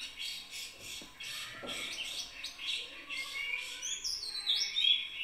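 Small birds chirping in quick repeated notes, with a few falling whistled calls in the second half.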